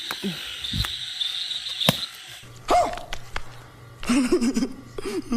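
Night insects chirring steadily, with frogs croaking and a few sharp clicks. In the second half other short pitched sounds come in.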